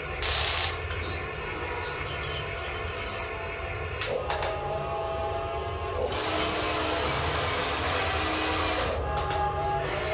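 Electric motors of a Huina radio-controlled toy excavator whirring as it works its boom and bucket, the pitch stepping as each motion starts and stops. There is a short louder burst about half a second in, and a louder, noisier stretch about six seconds in that lasts roughly three seconds.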